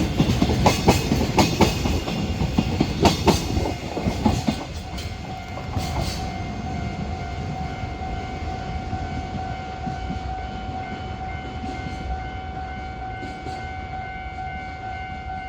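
Container freight train rolling past, its wagon wheels clickety-clacking loudly over rail joints for the first four or five seconds. The rolling noise then dies down, and a steady high tone carries on.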